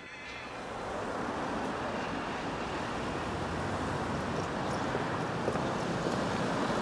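City street ambience with a steady rush of road traffic, swelling up over the first second and then holding.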